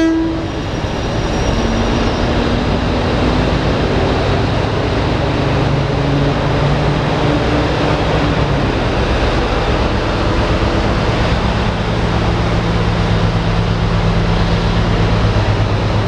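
Class 60 diesel locomotive engine working under power as it leads a convoy of Class 60 and Class 66 locomotives slowly away, a steady heavy rumble whose low note shifts as it pulls. A horn blast cuts off right at the start.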